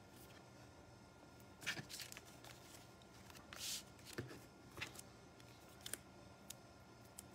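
Paper and cardstock being handled and slid across a craft mat: a few soft rustles and light taps, the longest rustle about three and a half seconds in, over quiet room tone.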